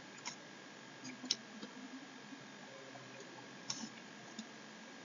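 A handful of faint, sharp clicks, about five spread irregularly, two of them close together around a second in and another near four seconds, over a steady background hiss with a faint constant tone.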